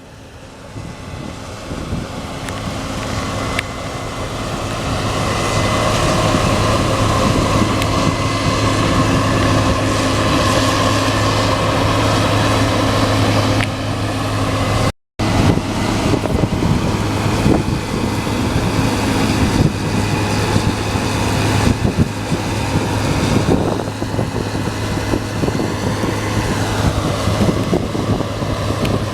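Case IH Axial-Flow combine harvester running steadily while threshing wheat, with a deep hum under dense machine noise. It grows louder over the first few seconds. The sound drops out for a split second about halfway through, then carries on unchanged.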